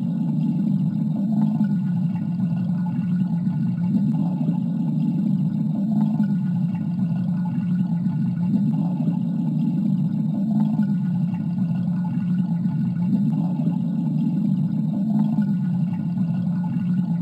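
Steady low rushing of water draining from a simulated tank through a fully open discharge valve, a Factory I/O sound effect, swelling slightly every couple of seconds.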